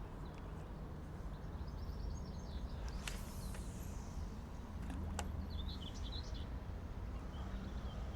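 Wind rumbling on the microphone on an open estuary bank, with a couple of faint clusters of short high chirps and two sharp clicks.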